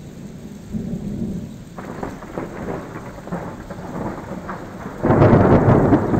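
Thunder rumbling over steady rain, with a much louder peal of thunder breaking about five seconds in.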